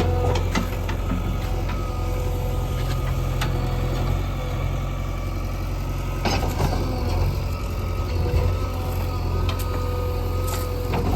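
JCB 3DX backhoe loader's diesel engine running steadily with a continuous whine, broken by a few sharp knocks, at the start, about six seconds in and near the end.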